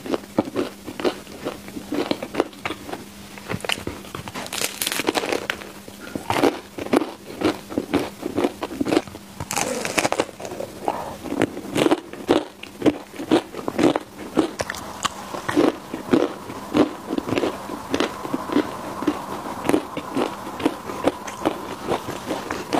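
Close-miked chewing of home-baked mochi balls, crisp outside and chewy inside: a steady run of quick mouth clicks and bites.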